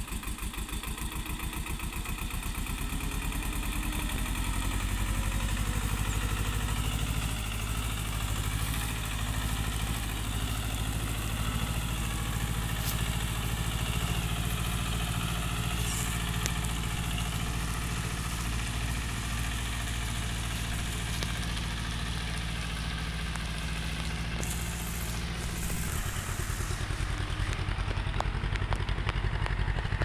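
Diesel farm tractor engine running steadily under load as it pulls a loaded trolley through soft mud; the engine note changes about four seconds before the end.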